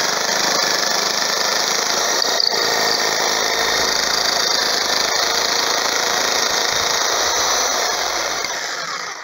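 Electric jigsaw running steadily, its blade sawing through the wooden pandeiro hoop to open a slot for the jingles; the saw stops just before the end.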